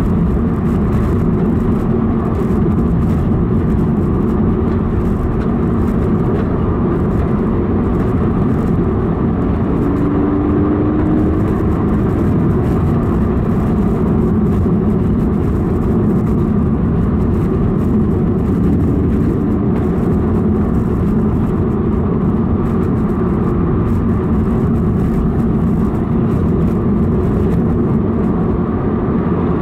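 Subaru BRZ's 2.0-litre flat-four engine and road noise heard from inside the cabin, cruising steadily at moderate throttle.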